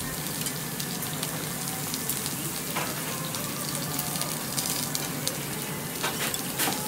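Meat sizzling on a tabletop jingisukan grill: a steady hiss, with a few light clicks and taps around three seconds in and again near the end.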